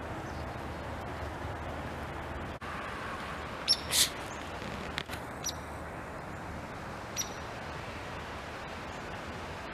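A few short, high-pitched bird chirps, the loudest a pair about four seconds in, over a steady background hiss.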